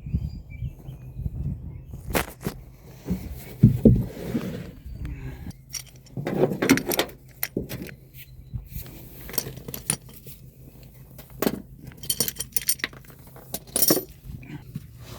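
Metal hand tools clinking and knocking as they are handled: irregular clicks and clanks, some with a short metallic ring.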